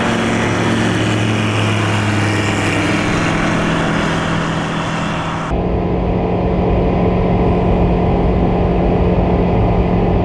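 Rotax 912 Xtra four-cylinder engine of a KFA Bushbaby bush plane at takeoff power. First it is heard from beside the runway as the plane lifts off and goes past, its pitch dropping a little. About halfway through, the sound cuts abruptly to the steady, duller engine drone inside the cabin during the climb.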